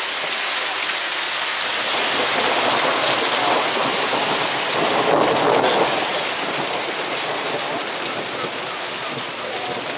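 Heavy rain shower falling steadily on wet pavement and puddles, as a dense hiss. A louder, lower swell of noise builds up between about two and six seconds in, then eases off.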